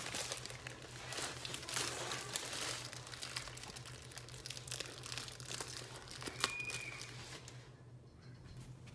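Foil balloon crinkling and crackling as it is handled, with a brief high squeak about six and a half seconds in; the crinkling dies down near the end.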